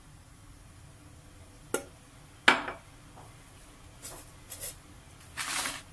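A drinking glass knocked down onto a granite countertop: a light click, then a sharp knock about two and a half seconds in. After it, a hand rustles and rubs ghee into shredded kunafa dough in a plastic bowl, in short scratchy bursts near the end.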